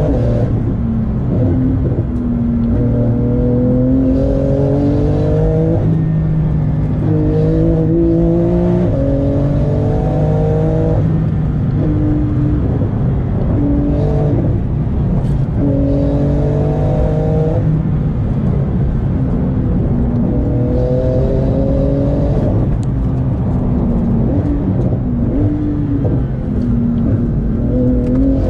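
Porsche 911 GT2 RS twin-turbo flat-six heard from inside the cabin under hard acceleration. The engine note climbs in pitch for a few seconds and then drops at each gear change, many times over.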